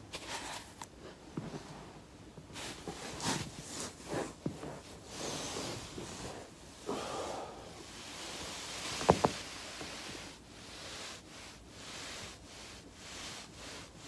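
A foam roller rolling and rubbing on carpet under a person's back, with fabric rustling and soft knocks as the body shifts on it. About nine seconds in come two sharp cracks close together, the loudest sounds here: the spine cracking under the roller's pressure.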